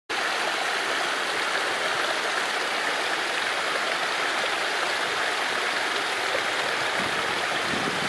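Steady rush of river water spilling over a low waterfall and through a beaver dam of piled sticks.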